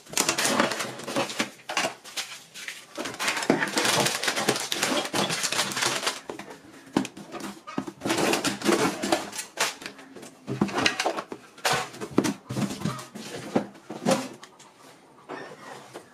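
Plastic packets of switches and sockets rustling and clattering as they are tipped out of a cardboard box onto a wooden table, in bursts, quieter near the end.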